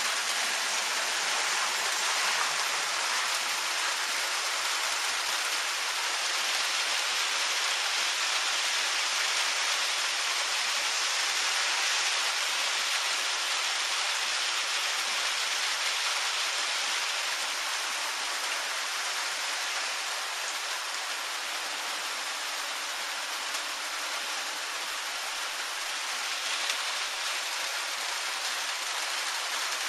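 Steady rain falling, an even hiss that eases slightly about two-thirds of the way through.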